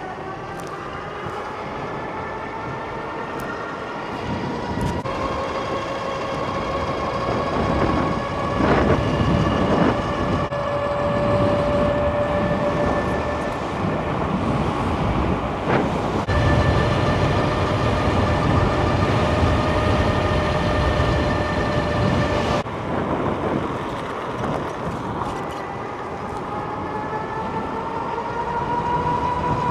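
Electric bike motor whining under power, its pitch climbing slowly as the bike gathers speed, then holding steady with a low rumble of wind and tyres underneath. The whine drops out suddenly about two-thirds of the way through, then comes back and climbs again near the end.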